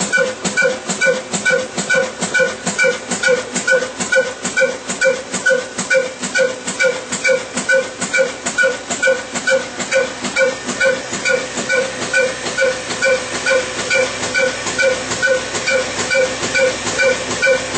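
Old stationary diesel engine running steadily with an even, rhythmic chuff, its heavy flywheel turning and belt-driving a flour mill under load.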